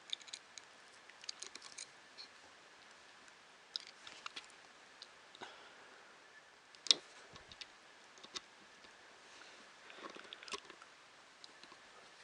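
Scattered light clicks and taps from small 3D printer kit parts and wiring being handled and fitted, the sharpest click about seven seconds in, over a faint steady hiss.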